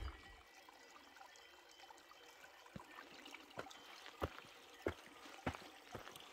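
A hiker's footsteps on rocky mountain ground: short crunching steps about every half second that begin a few seconds in. Faint trickling water runs behind them.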